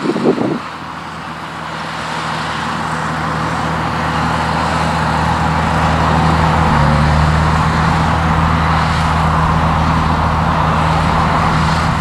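JCB Fastrac 3230 tractor's diesel engine running steadily under load as it pulls a 16 m set of Simba rolls, growing louder over the first few seconds as it comes closer, then holding level. A brief rough burst of noise comes right at the start.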